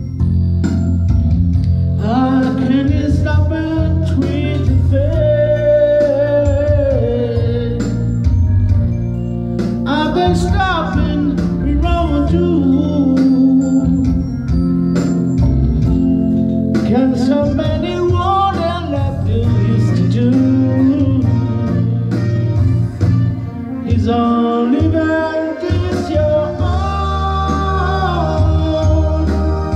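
A singer singing into a handheld microphone over a recorded backing track, with long held notes that bend in pitch.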